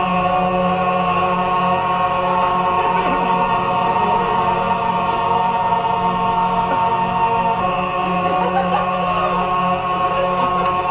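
Sustained choir-like drone of layered, looped voices: many held notes stacked into a steady chord, which shifts to different notes about three-quarters of the way through.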